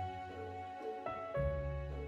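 Slow instrumental background music: held melody notes over deep bass notes, with a new bass note coming in a little past halfway.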